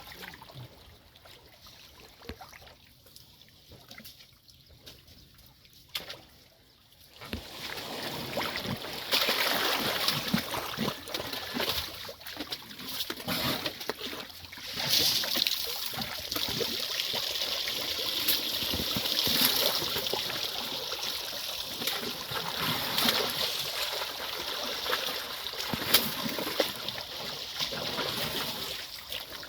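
Mud and water splashing and trickling as a young elephant plays in a mud wallow. The first few seconds are fairly quiet, then about seven seconds in a steady wet sloshing and trickling sets in, with many small splashes.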